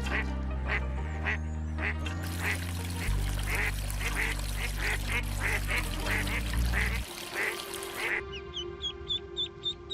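Ducks quacking in a steady run, about two quacks a second, over background music. About eight seconds in the sound cuts to ducklings peeping in short, high calls.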